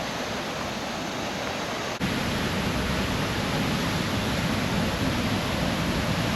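Steady rushing of a waterfall. About two seconds in it suddenly becomes louder and deeper, then carries on steady.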